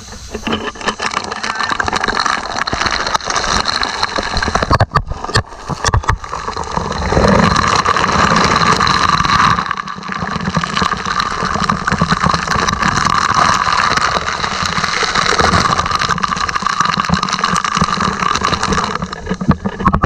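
Loud rushing and splashing of a ship's deck hose jet spraying water over people and straight onto the camera, with many small crackling hits of water drops on the microphone.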